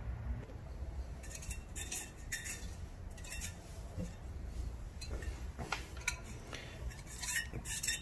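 Faint, scattered light clinks and taps of small hard parts being handled, over a low steady hum.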